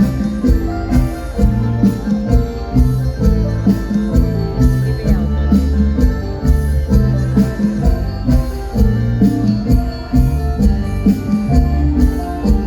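Instrumental mor lam band music, loud, with a steady driving beat and heavy bass.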